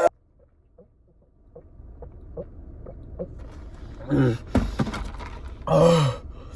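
A man makes two short, falling "mm" sounds while eating spicy chicken nuggets, about four and six seconds in, over a low steady rumble that starts after a brief near-silence. A few clicks come around the middle.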